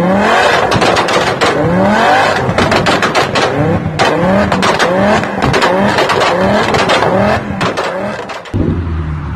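Tuned BMW sedan's engine blipped repeatedly in short rising rev bursts, about two a second, with exhaust pops and crackles between the revs as it backfires. Near the end it gives way to a different car's lower, steadier engine.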